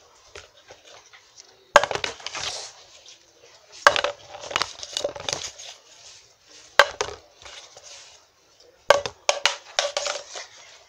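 A Pringles can being flipped and landing on a wooden tabletop: a sharp knock every two to three seconds, each followed by a short clatter, with the can handled in between.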